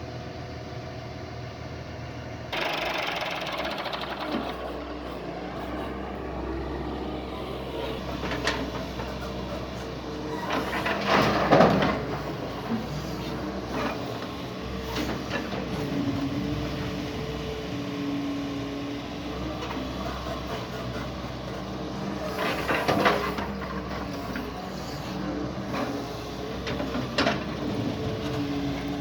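Doosan DX140 excavator's diesel engine running steadily under working load, with its pitch shifting a little as the hydraulics work. The sound jumps louder about two and a half seconds in, and there are louder rushing swells about eleven seconds in, again around twenty-three seconds and briefly near the end.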